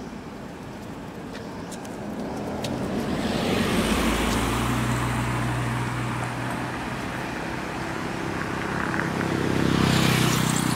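Motor vehicles passing on the road with a steady engine hum. The first grows loudest about four seconds in and fades, and a second swells in near the end.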